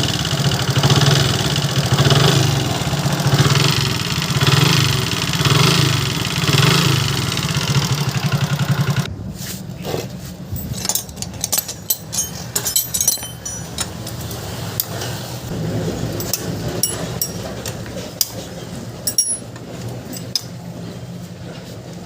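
Hero Glamour motorcycle's single-cylinder engine running with heavy timing chain and tappet noise, the sign of a worn timing chain and tappets; the sound swells and falls in a regular rhythm. About nine seconds in it cuts off abruptly and sharp metallic clicks and taps of tool work follow.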